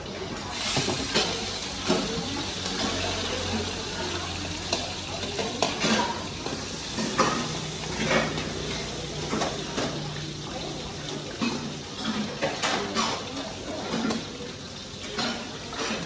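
Metal utensil clanking and scraping against steel woks as pork and shrimp bánh xèo filling is stirred in hot oil, with a steady frying sizzle underneath. The knocks come irregularly.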